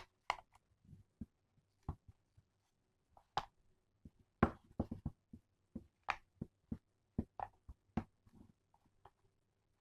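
Irregular sharp clicks and small taps of hands seating a roll of film and its spool in an aluminium Bencini Koroll camera, coming thickest in the middle.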